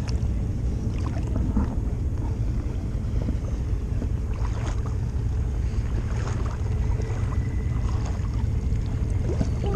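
Steady low rumble of a side-by-side UTV's engine running, with a few faint brief noises over it.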